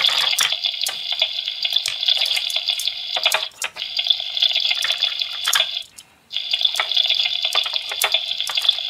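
Electronic sizzling sound from the Anpanman toy lunch plate's frying-pan speaker: a steady hiss that drops out briefly about three and a half seconds in and again for a moment around six seconds. Light clicks of plastic play food and toy tongs sound over it.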